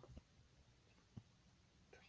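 Near silence: room tone, with two faint soft knocks, one shortly after the start and one about a second in.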